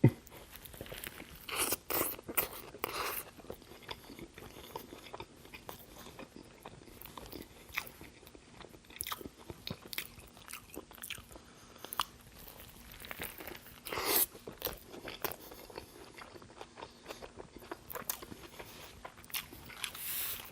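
Close-miked biting and chewing of a Burger King Double Whopper, with crunchy, wet mouth sounds. There are louder bursts of biting about two seconds in, around the middle and near the end.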